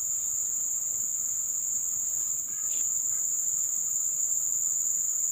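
Chorus of insects making a steady, unbroken high-pitched drone.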